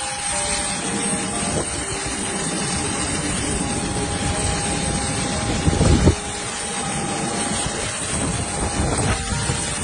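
Loud, steady roar of an airliner, with a faint steady whine and one heavy low thump about six seconds in.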